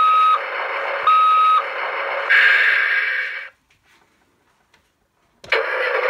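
Road Rippers toy semi truck's electronic sound effects through its small built-in speaker: a noisy engine sound with a beeping tone, heard twice, then a brighter rushing burst that cuts off suddenly. After about two seconds of quiet the sounds start again near the end.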